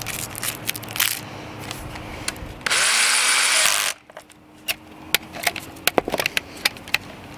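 BLACK+DECKER 20V cordless drill driving a screw into a piano hinge in one run of about a second, a little under three seconds in. Light clicks and taps of handling come before and after.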